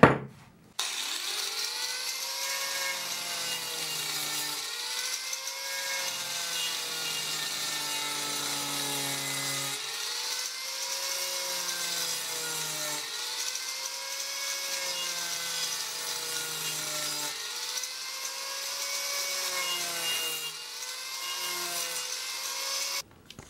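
Angle grinder fitted with a GRAFF Speedcutter chain-type wood-carving disc, cutting and shaping a wooden beam. The motor whine starts about a second in and runs steadily, its pitch sagging and recovering every couple of seconds as the disc bites into the wood, then cuts off just before the end.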